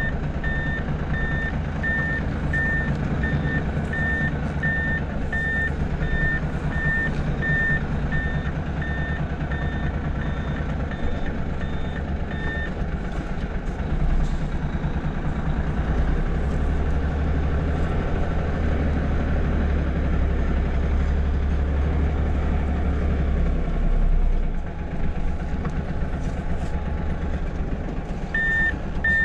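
Truck's reversing alarm giving a steady run of short high beeps over the diesel engine's low running. The beeping stops about a third of the way in while the engine note grows louder and deeper for several seconds, and the beeps start again near the end.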